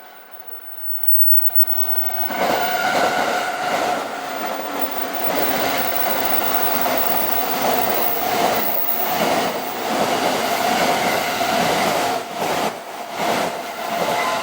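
Electric train on the Chuo Line passing close by, loud and sustained after building up about two seconds in, with wheels clattering over rail joints.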